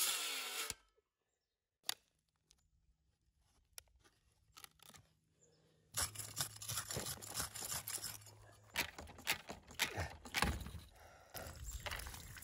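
A DeWalt power tool running at a PEX pipe fitting cuts off abruptly under a second in. After a few seconds of near silence come irregular scraping and crunching of dirt and gravel, with sharp clicks of handling, as the fitting is dug around and worked loose.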